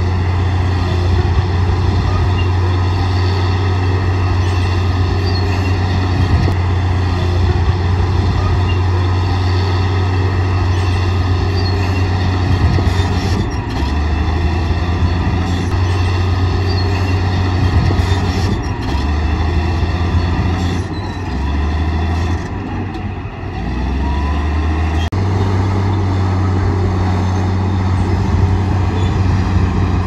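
Bulldozer's diesel engine running under load with a steady low drone. For a stretch in the middle its pitch drops and shifts several times before settling back to a steady run.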